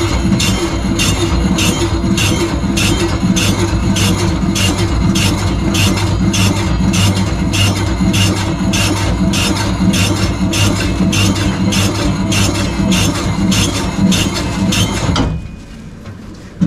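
Self-service automatic bread-slicing machine running as it slices a loaf: a steady motor hum with a sharp, regular clack from the slicing blades about twice a second. It stops abruptly about fifteen seconds in.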